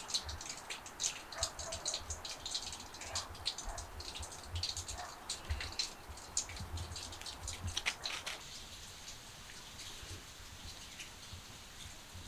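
Steps crunching through deep snow: irregular soft crunches that stop about eight and a half seconds in, leaving a faint steady hiss.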